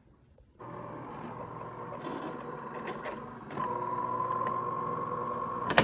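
DeLonghi fully automatic coffee machine's internal drive running with a steady motor whine that gets louder about three and a half seconds in, ending with a sharp click. It is the odd noise made while the mechanism turns, which the owner puts down to a dry brew-unit lifting slide rail that needs lubricating.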